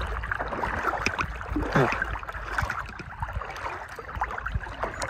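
Lake water sloshing and splashing right at the microphone as a swimmer strokes through small waves, with a low rumble and many small splashy clicks.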